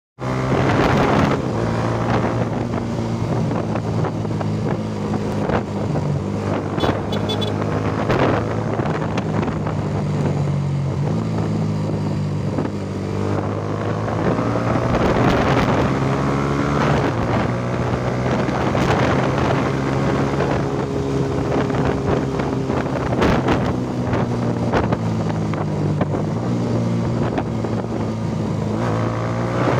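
Motorcycle engine running steadily while riding, its pitch shifting a few times, with wind buffeting the microphone.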